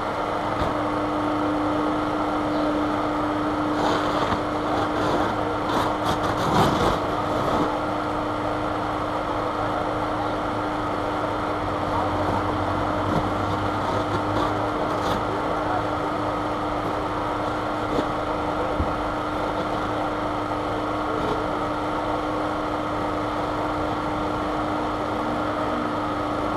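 Road traffic going by, a car passing about halfway through, over a constant steady hum.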